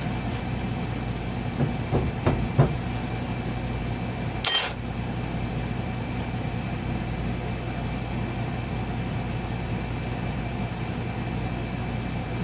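A steady low mechanical hum, with a few light taps about two seconds in and one sharp metallic clank with a brief ring about four and a half seconds in: hand tools on steel while the relief-valve plug is worked out of a hydraulic bead breaker.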